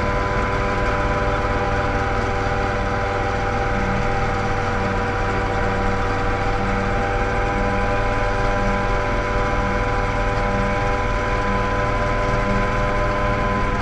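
Mosquito ultralight helicopter's engine and rotor running steadily, heard from the open cockpit, with a drone of several held tones over a low rumble.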